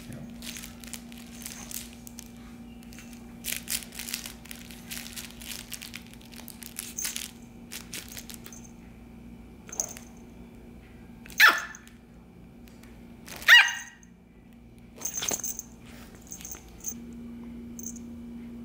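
A Shih Tzu puppy plays with a plush toy on a fabric dog bed, rustling and mouthing it, then gives two sharp high yapping barks about two seconds apart, followed by a softer third.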